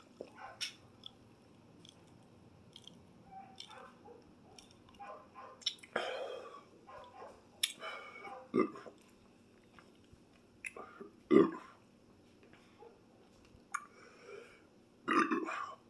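A person sipping a drink through a straw from a glass jar: short slurps, swallows, lip smacks and breaths, with a couple of louder throaty sounds about 11 and 15 seconds in.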